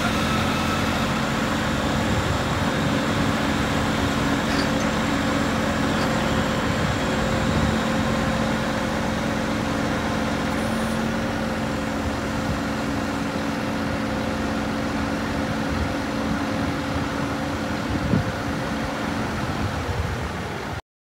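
Scania 124GB truck's diesel engine running steadily, powering the loader crane's hydraulics while the boom is folded in, with a steady hum throughout. Near the end there is a single knock.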